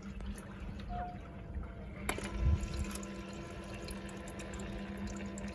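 Countertop ice maker's small water pump clicking on about two seconds in and running with a steady hum, with water trickling as it fills the ice tray. The compressor has not started yet.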